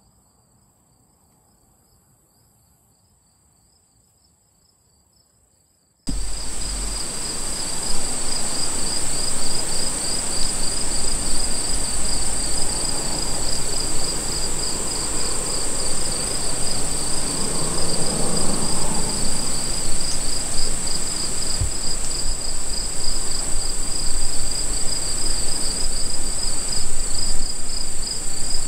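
Insect chorus at a field edge: a steady high-pitched trill with a fast pulsing chirp just below it, faint at first. About six seconds in, a much louder even rushing noise with a low rumble cuts in suddenly and continues under the insects.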